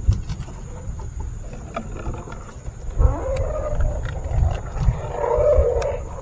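Rumbling, rubbing handling noise on a body-worn camera as a short casting rod and reel are handled, growing louder and rougher from about three seconds in, with scattered small clicks.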